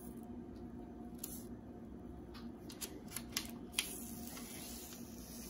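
Plastic release liner being peeled off the sticky pad of a Catchmaster window fly trap: faint crinkling with several light, sharp ticks of the film, over a steady low hum.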